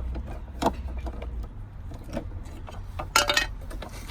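Light clinks and a brief clatter of hard parts being handled while a pipe connector is taken off a hot tub pump; a short rattle about three seconds in is the loudest.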